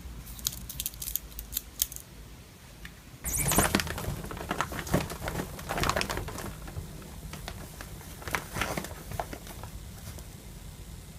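Scratching, rustling and scattered clicks and taps of a cat climbing a hanging fabric shoe organizer packed with shoes.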